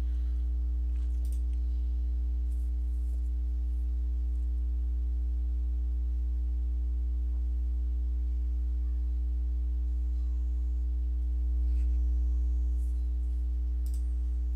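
Steady low electrical hum from the recording setup, with a few faint mouse clicks about a second in and again near the end.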